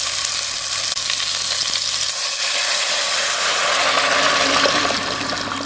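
Roast searing in butter in an Instant Pot Duo Mini's stainless inner pot on sauté: a steady sizzle of frying fat, easing slightly near the end.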